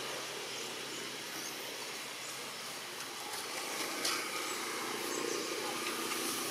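Steady outdoor background noise with a brief click about four seconds in.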